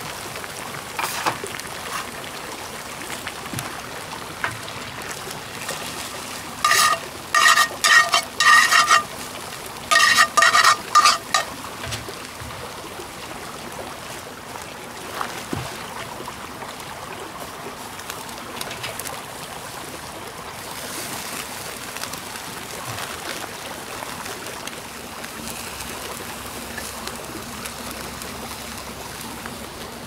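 Food sizzling as it fries in a pan, with light clicks and scrapes. About seven and again about ten seconds in come two runs of loud, short, harsh animal calls, four or five in each run.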